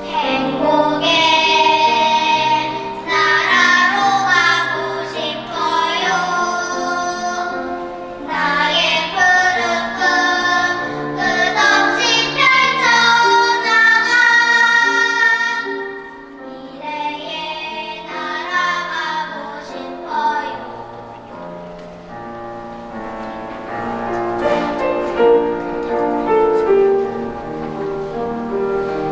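Children's choir singing a slow song with piano accompaniment. About halfway through the voices mostly drop away and the piano carries on more softly.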